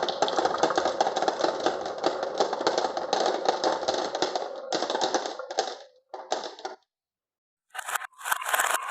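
Marbles rolling and clattering down a wooden marble-run track, a dense rapid clicking that thins into a few bursts and stops about seven seconds in. After a moment of silence the clattering starts again near the end.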